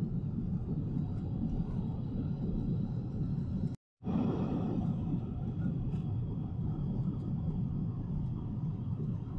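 Steady low rumble of Boeing 777-300ER cabin noise in cruise, the airflow and engine noise heard from an economy seat. It cuts out completely for a split second about four seconds in, then resumes unchanged.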